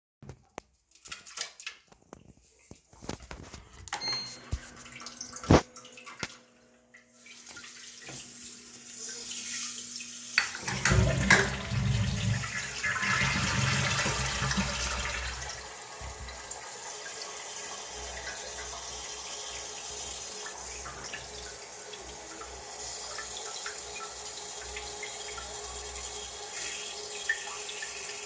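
Electric toilet bidet: a few clicks and a faint low hum, then from about seven seconds in a steady hiss of its water spray, heaviest for a few seconds before settling to an even spray.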